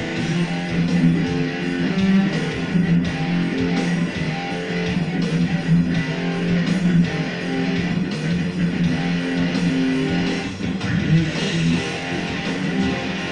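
Electric guitar played hard: strummed chords and a riff of a song, recorded through a smartphone's built-in microphone.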